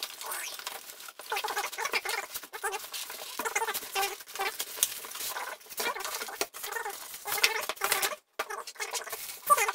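Plastic wrap crinkling and cardboard and foam packing rustling as a boxed glass bathroom scale is unpacked: an irregular run of scratchy crackles and scrapes.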